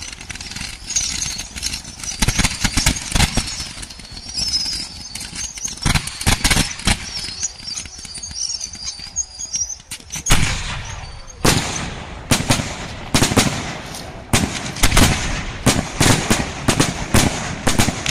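Fireworks display: ground fountains hissing and crackling, with high wavering whistles and scattered bangs. About ten seconds in, a rapid volley of aerial shell bursts and reports takes over, several bangs a second.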